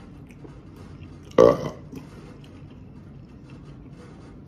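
A man belches once, short and loud, about one and a half seconds in.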